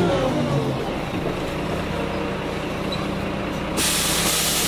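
Karosa B951E city bus heard from on board, slowing as a falling whine dies away, then its diesel engine idling steadily at a standstill. About four seconds in comes a sudden loud hiss of compressed air released by the bus's air system.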